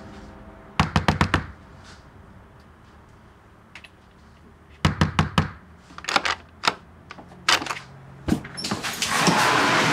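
Knocking on a door: groups of quick knocks, about four or five at a time, repeated several times with pauses between.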